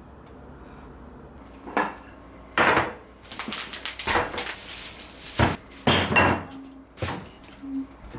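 Dishes and utensils clattering: after a quiet start, a string of irregular sharp knocks and clinks.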